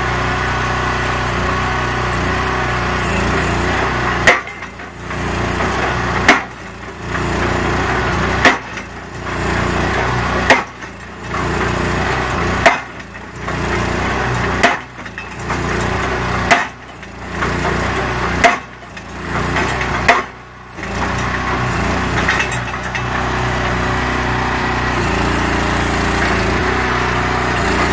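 Self-propelled guard rail post driver: its small engine runs steadily while the hydraulic hammer strikes the top of a post nine times, about once every two seconds, each blow followed by a brief lull, then the engine runs on alone.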